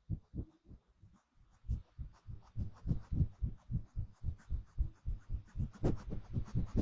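Soft, bass-heavy taps on an object held close to the microphone for ASMR. A few come scattered at first, then about four or five a second.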